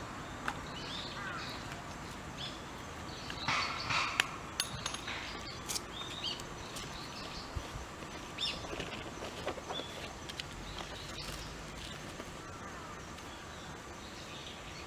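Small birds chirping in short, scattered calls over a steady outdoor background, with a brief cluster of sharp clicks and a louder crackly burst about four seconds in.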